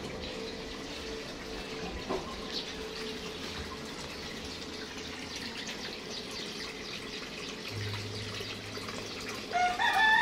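Water pouring steadily into a small garden koi pond from a spout or waterfall, with a faint steady hum underneath. Near the end a rooster starts crowing.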